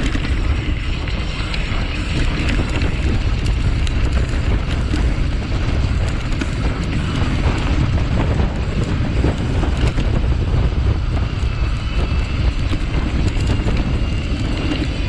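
Heavy wind noise on the camera's microphone during a mountain-bike descent on a dirt forest trail, mixed with tyre noise and frequent small rattles and knocks of the bike over rough, stony ground.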